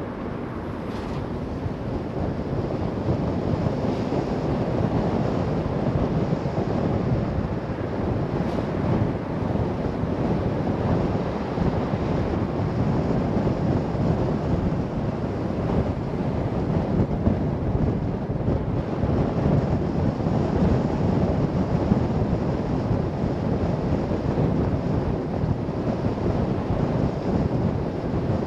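Steady wind and road noise of a car driving, a continuous low rumbling rush with wind buffeting the microphone.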